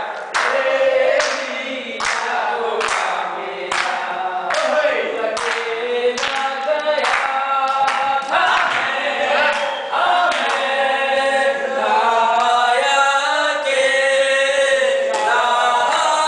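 A group of voices singing together, with hand claps keeping a beat about twice a second through the first half.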